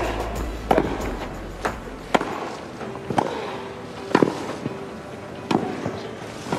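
Tennis rally: about seven sharp racket-on-ball strikes, roughly a second apart. Background music runs under the first two seconds and then cuts out.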